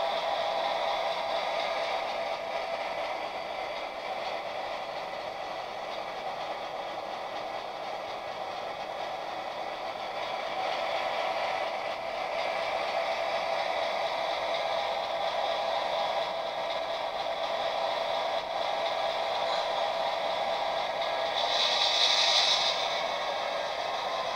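HO-scale model diesel locomotives running slowly on the layout track, a steady whirring hum with light rattle. A short, brighter hiss comes about 22 seconds in.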